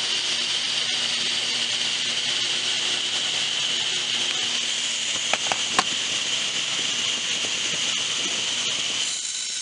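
Table saw running steadily with a high whine, its blade cutting a shallow groove into a wooden dowel that is held and turned against it. A few sharp ticks come about five and a half seconds in.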